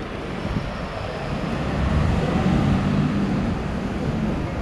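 City street ambience: a steady rumble of road traffic that swells for a second or two in the middle as a vehicle goes by.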